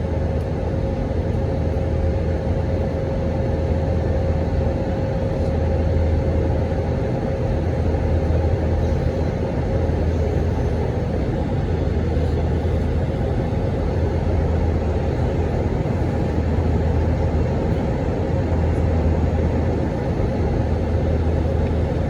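Steady cabin drone of an Airbus A319 in flight, from the engines and airflow, with a low rumble that swells and eases slowly and a steady hum that fades about halfway through.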